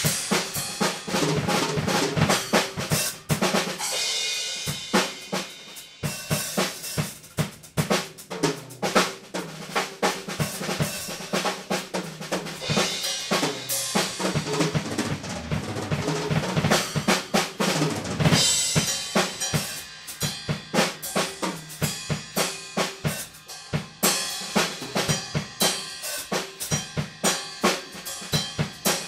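Acoustic drum kit played solo and improvised: fast strokes on snare, toms and kick drum, with stretches of crashing cymbals at intervals.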